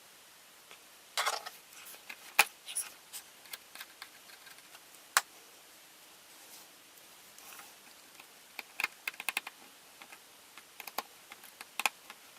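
Scattered light clicks and taps of a small screwdriver and phone parts while an iPhone 6 is being screwed back together, with quick runs of clicks in the second half.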